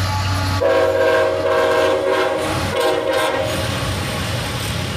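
Diesel freight locomotive's air horn sounding two blasts, the first about two seconds long and the second shorter, over the rumble of the locomotive.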